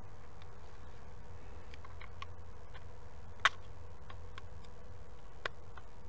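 Small ticks and clicks of a screwdriver tip prying at the plastic tabs on the back cover of a 2009 Hyundai Elantra power window switch. There is one sharp click about three and a half seconds in and a lighter one near the end, over a steady low hum.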